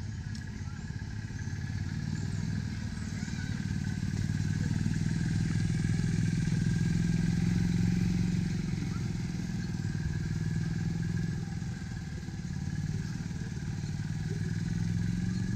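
Small engine of a utility cart running as it drives along the path ahead: a steady low drone that swells in the middle, dips briefly about three-quarters of the way through, then picks up again.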